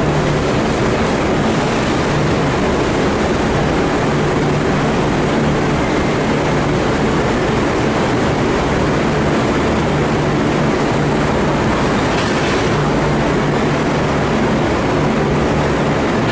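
Broad-gauge freight train's container flat wagons rolling past close by, a steady loud noise of steel wheels running on the rails.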